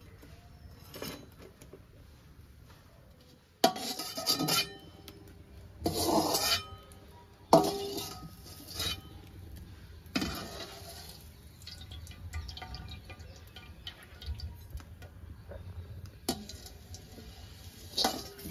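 Kitchen utensils clinking and knocking against cookware: about six sharp clinks spaced a few seconds apart, each ringing briefly.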